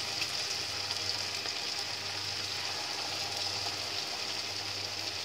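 Freshly added batter-coated cauliflower florets deep-frying in hot oil in a kadai: a steady sizzle with small scattered crackles.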